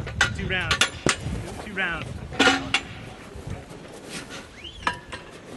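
Sharp metal knocks and clinks as a mortar crew handles a 120 mm mortar and its equipment, with short bursts of voices among them.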